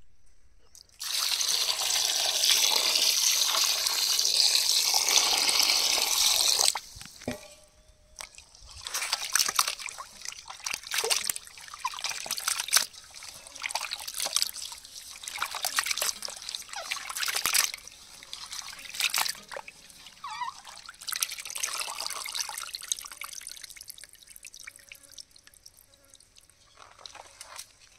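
Water pouring steadily for about six seconds, then irregular splashing and sloshing as pieces of rabbit meat are washed in water.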